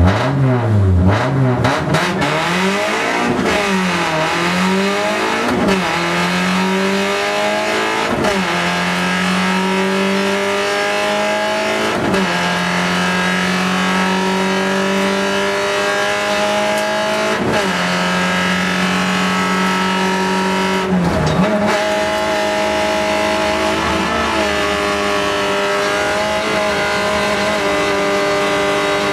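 Fiat Seicento kit car's four-cylinder engine, heard from inside the cabin, driven hard through the gears. The revs waver up and down for the first couple of seconds, then climb steadily with a sharp drop at each gear change, about six times.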